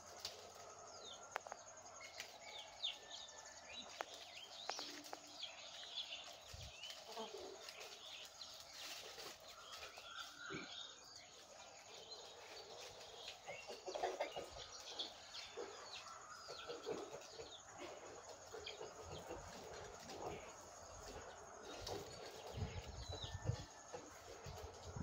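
Many small birds chirping and tweeting, short high calls scattered all through, fairly faint. A low rumble comes in near the end.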